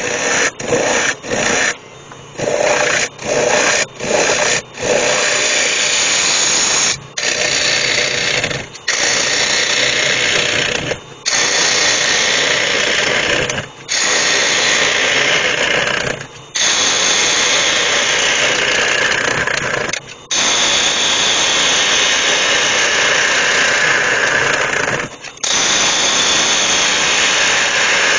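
Bowl gouge cutting into spalted beech spinning on a wood lathe, hollowing the inside of a bowl: a loud hissing, tearing cut. Several quick short cuts in the first few seconds, then longer cuts separated by brief pauses as the gouge is drawn back and re-presented.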